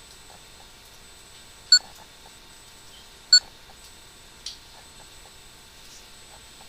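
A PC giving two short, high-pitched beeps about a second and a half apart, followed by a fainter click.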